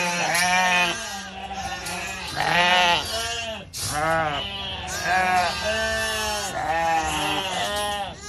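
Shetland sheep bleating, several voices overlapping in a near-continuous run of calls, each lasting about half a second to a second.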